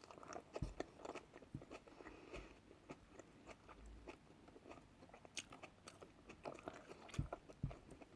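Faint chewing and crunching of someone eating, with scattered small clicks.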